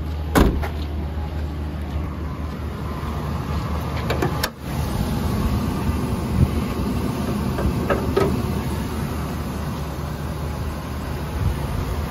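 The Chevrolet Express van's 6.0 L Vortec V8 idling with a steady low hum. A sharp knock comes about half a second in, and another click about four and a half seconds in.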